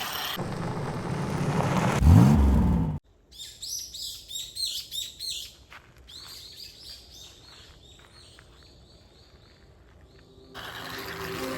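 A loud rushing noise with a low tone that swoops up and back down, cutting off suddenly about three seconds in, then birds chirping, many short calls at first and thinning out. Music fades in near the end.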